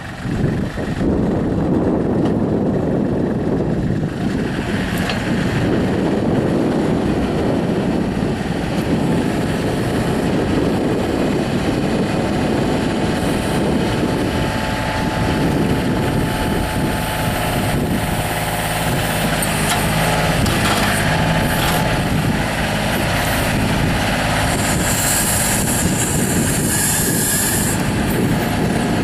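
Kubota L35 tractor loader backhoe's four-cylinder diesel running steadily and loudly, picking up about a second in. A brief high hiss joins it near the end.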